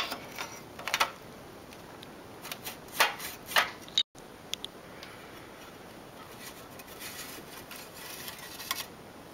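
Handling noises from a Macintosh Classic's logic board and its metal chassis: sharp clicks and knocks, the loudest about three seconds in, then softer rubbing and scraping near the end.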